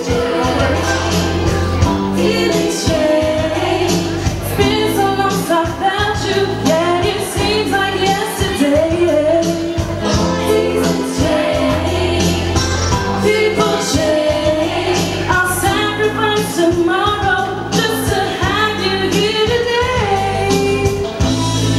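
A woman singing karaoke into a microphone over a recorded backing track, her voice amplified through the room's sound system.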